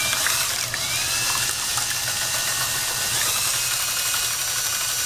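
DeWalt cordless drill spinning a wire whisk attachment through an egg mixture in a stainless steel bowl: a steady motor whir with small clicks, its pitch shifting briefly about a second in and again around three seconds in.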